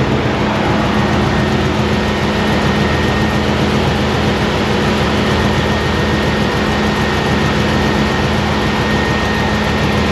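Supercharged V8 in a Chevrolet Silverado idling steadily. A thin, steady high whine sits above the engine note from about a second in.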